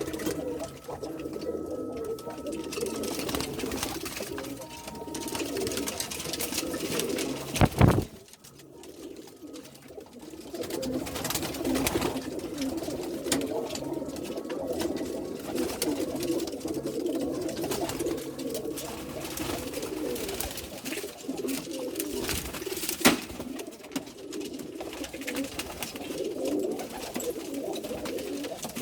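Domestic pigeons cooing without pause, several calls overlapping. A sharp knock stands out about eight seconds in, and another comes later.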